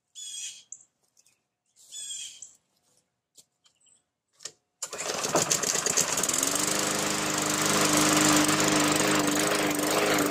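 Walk-behind lawn mower's small engine starting about five seconds in and settling into a steady run, with the bail handle held so the newly fitted brake cable releases the flywheel brake. Before it, two short bird calls and a few faint clicks.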